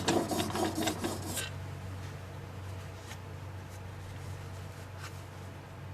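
Plane iron in a honing jig rubbed back and forth on the fine side of an oiled sharpening stone while its bevel is reground: rapid gritty scraping that stops about a second and a half in. A low steady hum and a couple of faint clicks follow.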